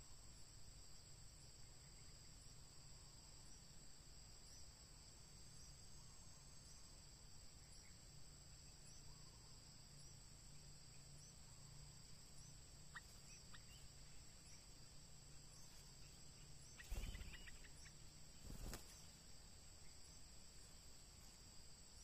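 Steady, faint high insect trilling. About three quarters of the way through comes a brief loud rustle with fast chattering, and a shorter one under two seconds later.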